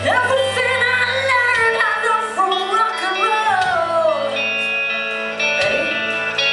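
Live rock band playing: a woman's lead vocal over electric guitar chords and bass guitar. The voice sings a wavering line for about four seconds, then the guitars ring on without it.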